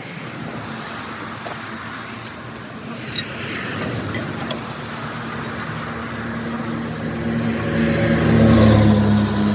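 Heavy truck's diesel engine running, getting louder about eight seconds in.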